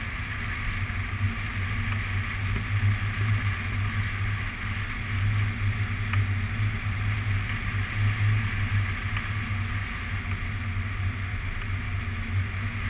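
Wind rushing over the microphone of a camera mounted on a hang glider in flight: a steady low rumble that swells and eases.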